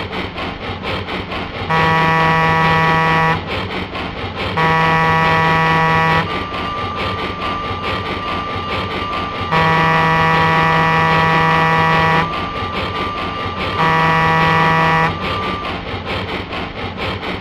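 Train horn sounding four blasts on one steady note, the third blast the longest, over the steady rhythmic running noise of the train.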